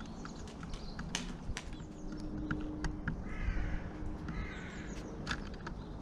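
Pigeons pecking at food on a bird table: scattered sharp taps of beaks on the tray, the loudest about a second, a second and a half and five seconds in. Another bird calls twice in the background, about three and four seconds in.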